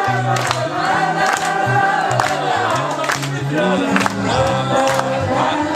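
Live band with a concert crowd singing a wordless 'la la la' melody together, over a bass line and a steady drum beat.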